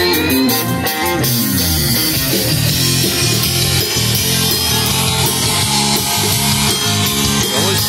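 Live rock cover band playing loudly through QSC CP12 powered PA speakers: electric guitar, bass and drum kit keeping a steady beat, with a few sliding guitar notes in the first second.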